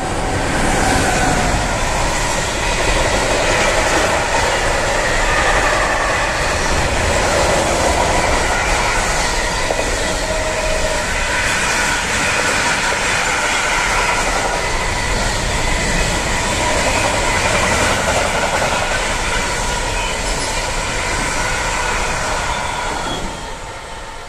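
Long freight train of container and swap-body wagons behind an electric locomotive rolling past at speed: a steady, loud rush of wheels on rail with ringing tones in it, fading near the end as the last wagons go by.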